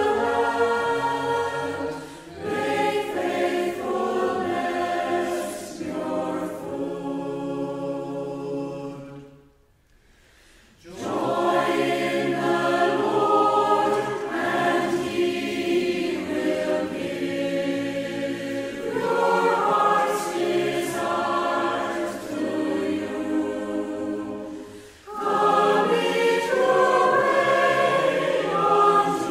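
A group of voices singing a metrical psalm in parts, unaccompanied, line by line, with a short break about ten seconds in before the next line begins.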